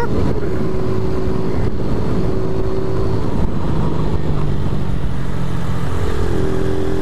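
Motorcycle engine running while riding, with wind rushing over the microphone. The engine note drops lower partway through and rises again near the end.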